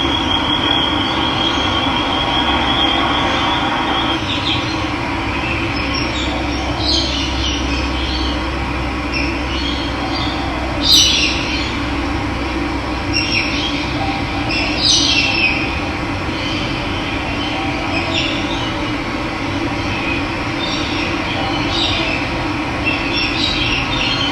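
Steady rush of running water, with birds calling over it now and then; a high steady trill in the first few seconds, and the loudest call about eleven seconds in.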